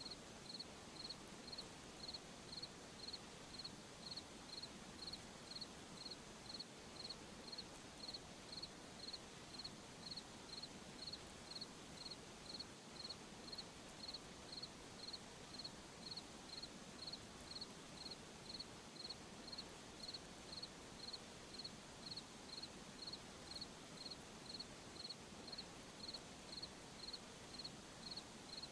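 A cricket chirping in a steady, even rhythm, about one and a half high chirps a second, over a faint, steady hiss of night ambience.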